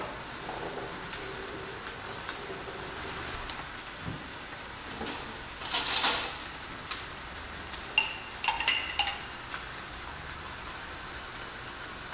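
Chicken breasts sizzling steadily on a closed combination grill-panini press. A louder clatter comes about halfway, and a few ringing clinks of a metal spoon against a glass jar of seeds follow.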